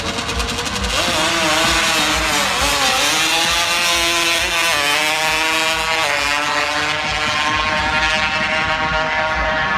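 A loud car engine revving and accelerating, its pitch climbing, dropping and climbing again.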